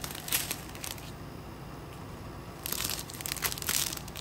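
Clear plastic packets of diamond painting drills crinkling as they are handled: a short rustle near the start, then a longer spell of crinkling in the last second and a half.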